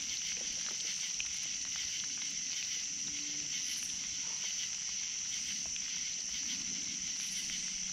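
Steady high-pitched chorus of night insects, with a few faint clicks.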